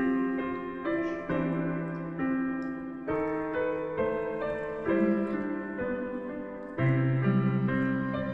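Slow background piano music, notes and chords struck about once a second and left to ring.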